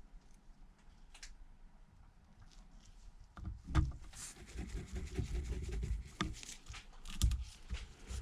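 Light handling noise from small tools and phone parts on a work surface: near-quiet at first, then scattered clicks and soft knocks from a little over three seconds in.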